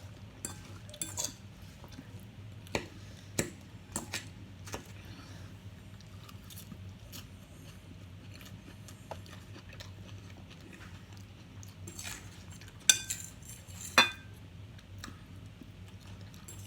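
Eating sounds: cutlery clinking and scraping on a plate, with chewing in between and two louder clinks near the end, over a steady low hum.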